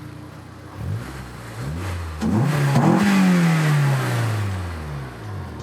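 Honda S2000's four-cylinder engine accelerating, its revs climbing in short pulls and then falling away in one long run-down near the end. The valve clearances have just been adjusted and no valve tick is heard.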